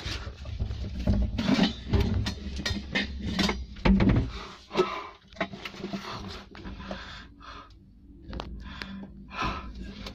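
Bumps, knocks and rustling from a handheld camera being swung around a small room, with scattered clicks and breathing close to the microphone. The heaviest bumps come about a second in and about four seconds in.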